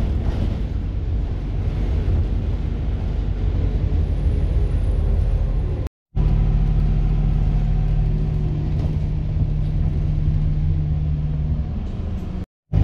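Steady engine drone and road rumble inside a moving city bus. It breaks off for a moment about six seconds in and again near the end.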